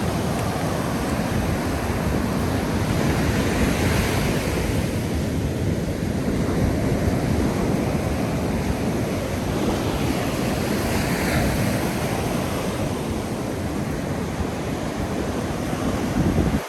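Ocean surf breaking and washing up a sandy beach, a steady wash that swells a little now and then, with wind rumbling on the microphone.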